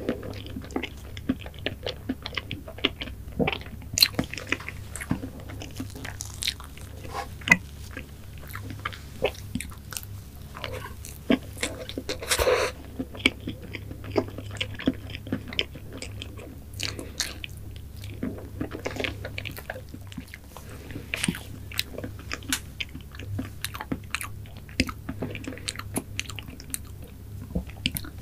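Close-miked chewing of soft mango cake with whipped cream: a steady run of wet mouth clicks and smacks, with a louder, longer mouthful sound about twelve seconds in.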